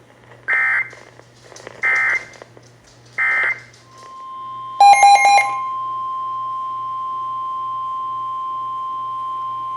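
Emergency Alert System data bursts: three short, identical screeching blips about a second and a half apart, the end-of-message code that closes the relayed alert. Then comes a brief, loud, stuttering multi-tone burst, followed by the steady single-pitch NOAA Weather Radio warning alarm tone that opens the next alert, a tornado warning.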